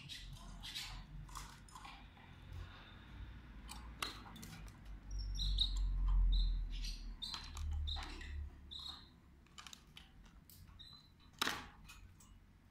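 Caged canaries giving short, high chirps, repeated a number of times through the middle, among scattered clicks and taps, with a single sharper click near the end. A low rumble swells in the middle.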